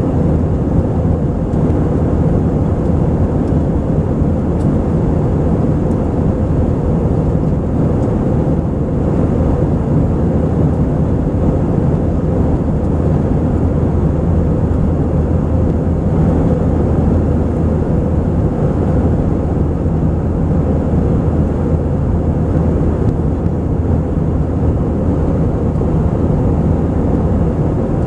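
Steady cabin noise of an Airbus A320-232 in the climb: its IAE V2500 turbofan engines and the rush of air past the fuselage, heard from a window seat over the wing as an even roar with a low hum underneath.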